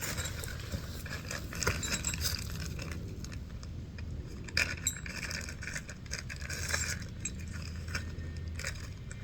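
Small metal parts and hardware clinking, rattling and scraping as they are picked through and handled, in many irregular light clicks.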